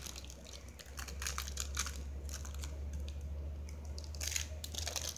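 Thin plastic wrapper of a Kraft Singles cheese slice crinkling as it is peeled open by hand: a run of small crackles, with a louder rustle about four and a half seconds in.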